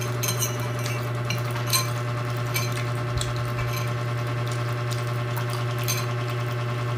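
Raw cabbage being eaten: short scattered crunches and clicks as leaves are chewed and dipped in a bowl, over a steady low hum.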